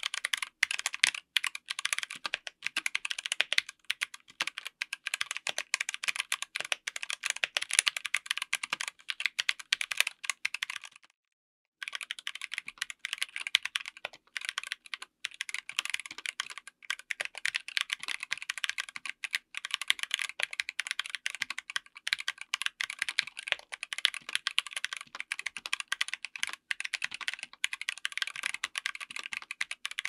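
Fast typing on a 60% mechanical keyboard with Zeal Clickiez 40g switches on an FR4 plate in an aluminium case, with doubleshot ABS keycaps: rapid irregular key clacks. The switches are the tactile version for about the first eleven seconds, then after a brief pause the linear version.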